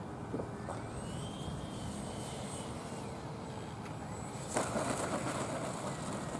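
Radio-controlled model jet running, a steady rushing noise with a faint high whine that glides up and down in pitch. About four and a half seconds in, a louder, rougher rush of noise sets in.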